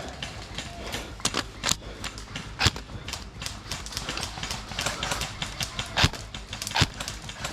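Airsoft gunfire: about five sharp, loud shots or BB hits spread unevenly through, with a busier patter of smaller clicks in the middle.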